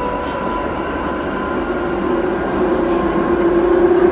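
London Underground Jubilee line train running through a tunnel, heard from inside the carriage: a steady rumble and rush of wheels and motors, with a hum that grows louder about halfway through.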